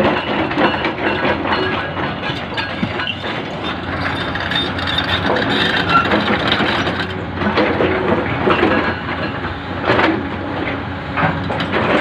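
Hidromek HMK 300 LC excavator working: its engine running under load while the steel bucket digs and scrapes through loose broken rock, the rocks clattering and knocking against it, with one louder knock about ten seconds in.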